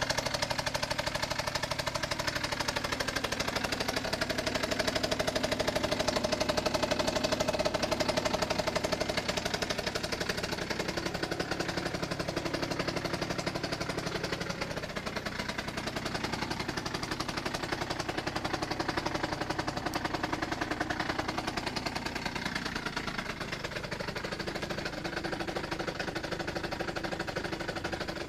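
Minarelli 50 cc two-stroke scooter engine idling steadily with a fast rattling beat, its pitch shifting only a little.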